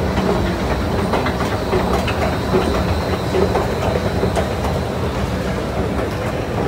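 Escalator machinery running steadily, with the rumble and rattling clatter of the moving steps echoing around a hard-surfaced station hall. Faint indistinct voices sound in the background.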